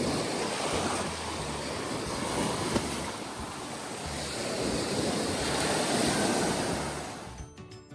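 Ocean surf washing and breaking, rising and falling in waves, with wind blowing across the microphone. It cuts off abruptly near the end, giving way to music.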